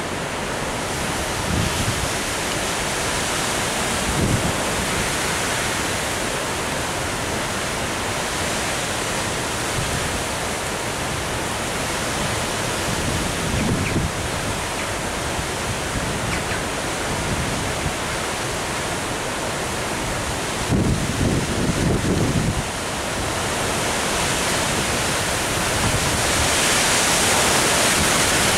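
Strong, gusty storm wind rushing steadily through trees and hedges, with gusts buffeting the microphone in short low thumps a few times, the longest about three quarters of the way through. The rush swells louder near the end.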